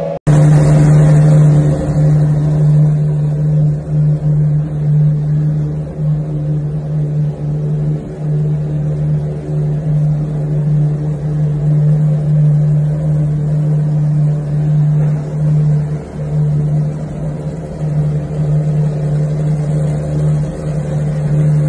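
Ferrari FXX-K's V12 engine idling steadily, its note holding even with small wavers and no revving.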